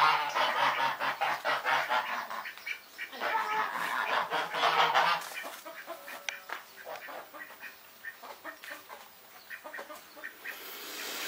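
Birds calling in rapid, chattering bursts, loudest at the start and again from about three to five seconds in, then fainter scattered calls.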